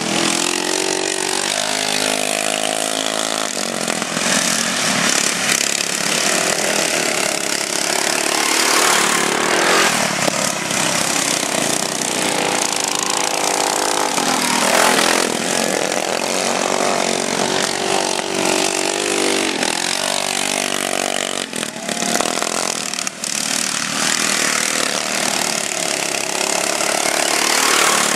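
Racing riding lawn mowers' small engines running hard, their pitch rising and falling again and again as they rev up and ease off around the dirt track.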